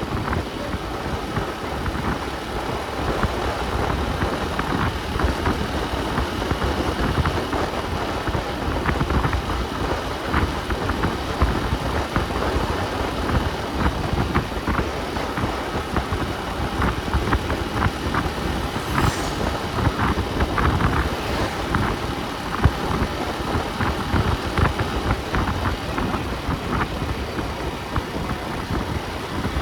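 A car on the move: steady engine and road noise, with a brief falling high-pitched whine about two-thirds of the way through.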